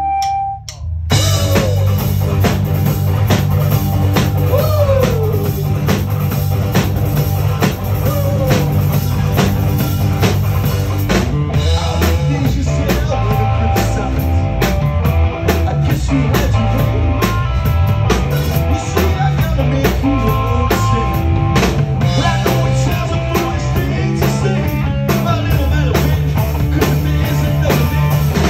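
Live rock band playing: drum kit, electric guitars and bass, starting about a second in after a brief lull.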